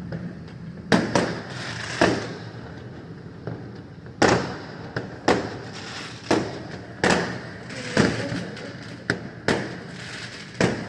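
New Year fireworks going off: a string of sharp bangs at uneven intervals, about one to two a second, each trailing off briefly.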